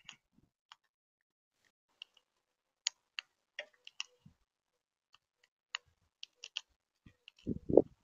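Scattered sharp clicks and taps, about a dozen at irregular spacing, from a monk parakeet's beak picking at and cracking seeds and nuts in a plastic feeder tray. A muffled low thump near the end is the loudest sound.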